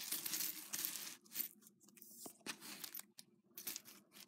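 A chunky metal-link necklace with acrylic beads rustling and clinking as it is handled and straightened on a table: a dense rustle in the first second, then scattered small clicks.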